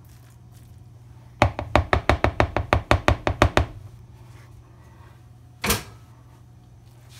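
Kitchen mixing spoon rapped quickly against a bowl to knock off food, about fifteen sharp knocks at some seven a second, then one more knock about two seconds later.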